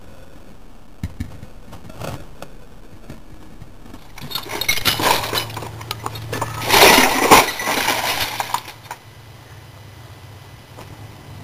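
Smashed old CRT television's broken glass and loose parts clinking, rattling and crashing as the set is handled and thrown, a few small clinks early, then a loud stretch of clattering and breaking glass about four seconds in, loudest around seven seconds in.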